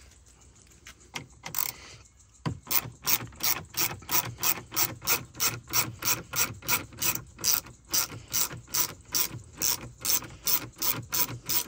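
Hand ratcheting driver with a socket clicking as it backs out a small bolt from the dashboard frame; after about two and a half seconds of near quiet, a steady run of ratchet clicks, about four a second.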